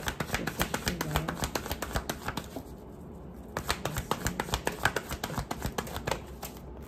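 A deck of tarot cards being shuffled by hand: a rapid run of clicks as the cards flick together, with a pause of about a second near the middle before it resumes.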